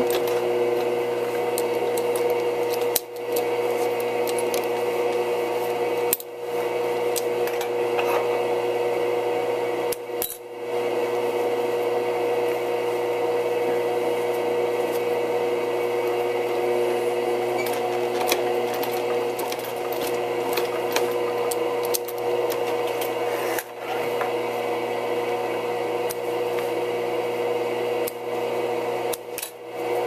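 Sewing machine running with a steady hum while stitching through thick leather, stopping briefly a few times.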